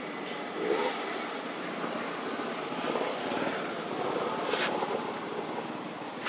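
Steady rushing outdoor background noise, with one sharp click about four and a half seconds in.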